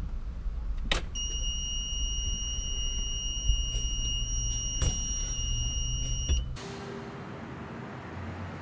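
A fire engine's cab warning buzzer gives a steady, high-pitched electronic tone for about five seconds over a low rumble, with a few sharp switch clicks. It cuts off abruptly along with the rumble.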